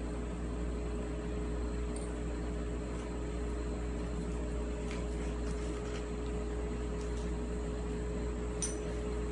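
Steady mechanical hum of a room appliance or ventilation unit, with a few faint ticks and light taps.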